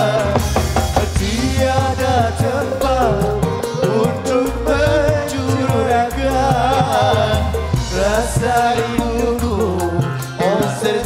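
Live dangdut band music, with a steady drum beat under a wavering melody line.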